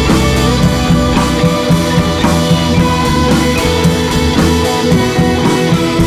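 Background music: rock with guitars and a drum kit playing a steady beat.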